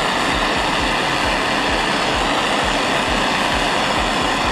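Propane torch flame running with a steady rushing roar that flutters in the low end, heating a brass-to-stainless steel tube joint to a dull red for silver brazing.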